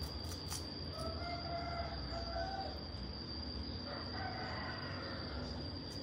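A rooster crowing twice, faint and drawn out, about a second in and again about four seconds in, over a steady high insect drone and a low rumble.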